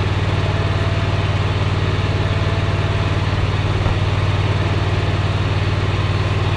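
Engine idling steadily, a deep even hum with no change in speed.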